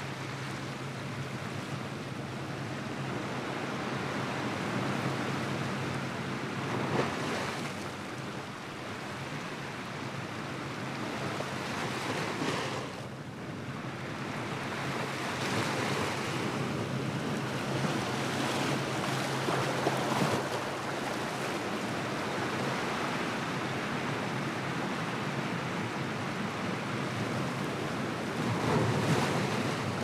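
Small ocean waves breaking and washing in over a rocky shore and shallow reef shelf: a continuous hiss of surf that swells and eases, with about five louder surges as waves break.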